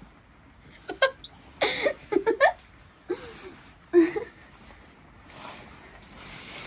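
Short bursts of laughter and giggling, with the soft rustle of a grooming brush stroking a wet horse's coat near the end.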